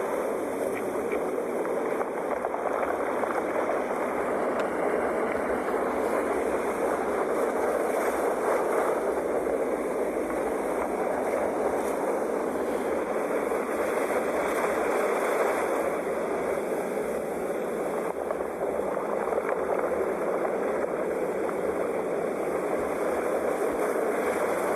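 Sea surf washing ashore: a continuous rushing noise that swells and eases gently every few seconds.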